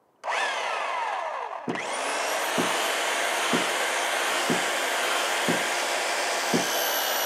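Power drill turning a long auger bit as it bores a hole into a tree trunk for a 1-inch lag screw. The motor slows briefly, then speeds up about a second and a half in to a steady high whine, with a dull knock about once a second as the bit cuts into the wood.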